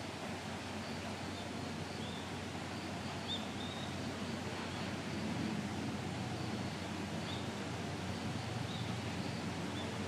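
Steady outdoor background noise with a few short, faint bird chirps scattered through it.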